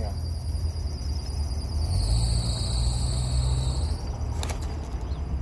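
Steady, high-pitched chirring of insects, shifting in pitch for a couple of seconds in the middle, over a low steady rumble of wind or distant traffic. There is one light click about four and a half seconds in.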